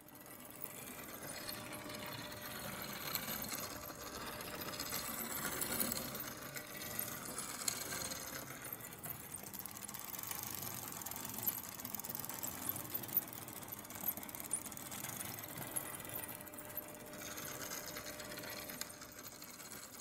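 Steady mechanical clatter of a small machine running, with fine rapid clicking throughout; it fades in at the start and fades out at the very end.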